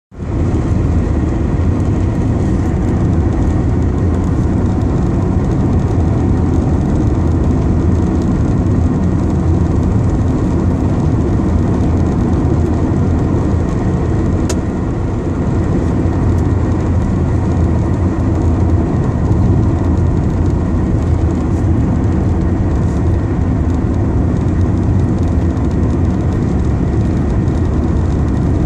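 Car driving on a snow-covered road: a steady low rumble of engine and tyre noise, with a single faint click about halfway through.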